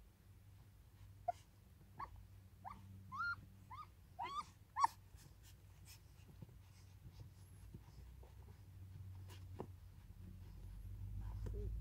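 Newborn puppies squeaking and whimpering while they nurse: a run of about seven short, high squeaks in the first five seconds, each rising and falling in pitch, then faint clicks.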